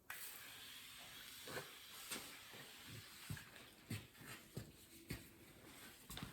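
Wiping down a truck door with a rag and wax and grease remover: irregular soft knocks and rubs of hand and cloth on the panel over a faint hiss.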